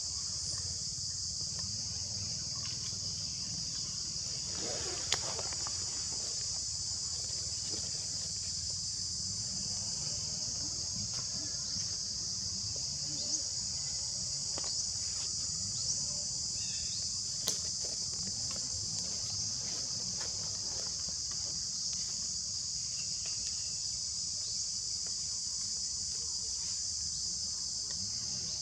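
Steady, high-pitched chorus of insects, with a low rumble underneath and a few sharp ticks scattered through.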